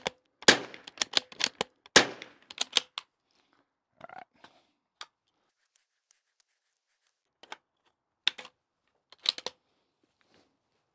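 Bergara B14R .22 rimfire bolt-action rifle firing two fouling shots about a second and a half apart, with bursts of bolt-working clicks around them, then scattered fainter clicks.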